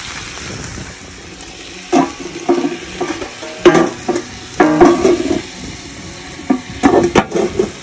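Chicken and vegetables sizzling in oil and water on a Blackstone steel griddle. Several times, starting about two seconds in, metal clanks and scrapes against the griddle top ring out loudly over the sizzle.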